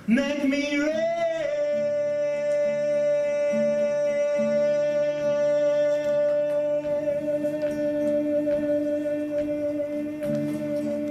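A man's voice holds one long sung note over a strummed acoustic guitar: the song's final note. The pitch slides about in the first second, then holds steady for about nine seconds.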